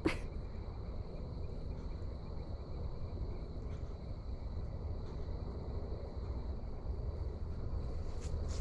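Dusk insect chorus: a steady high buzz over a low rumble, with a sharp click at the start and a few faint clicks later on. The clicks are heard as something moving around in metal, a source nobody can see.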